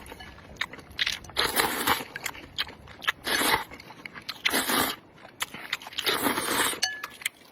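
Rice noodles being slurped from a bowl of soup: four short slurps, with the small wet clicks of chewing between them.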